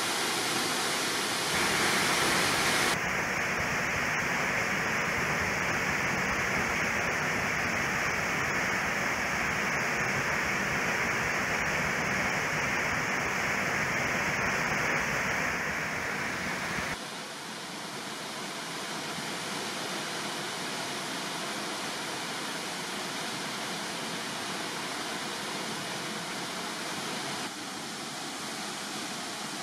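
Ozone Falls, a tall plunge waterfall, pouring into its pool with a steady rushing roar of falling water. The sound changes abruptly about three seconds in and again just past halfway, where it turns quieter and duller.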